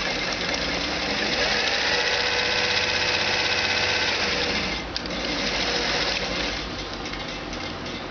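Electric domestic sewing machine running steadily as it stitches a seam through fabric. It stops briefly about five seconds in, runs again, then goes quieter near the end.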